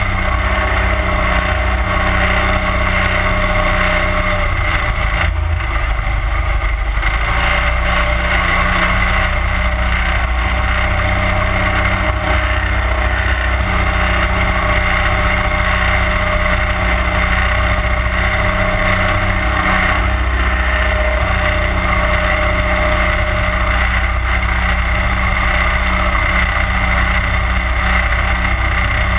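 31 hp Mud Buddy Hyperdrive surface-drive mud motor running steadily at cruising speed, heard from on board, with water rushing along the hull.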